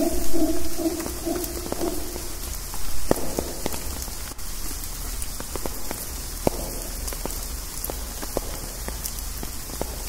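Rain dripping through the rainforest canopy: scattered single drops striking leaves at irregular moments over a steady hiss of rain. A low, rough howler monkey roar trails off in the first second or so.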